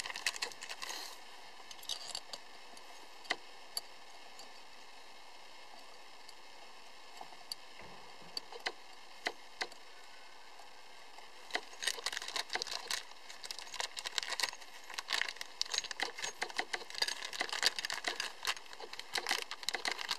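Small plastic parts bag crinkling in the hands as the hub lock's Allen head screws are worked out of it, with light clicks of the screws. Only scattered clicks until a little past halfway, then the crinkling becomes dense and busy.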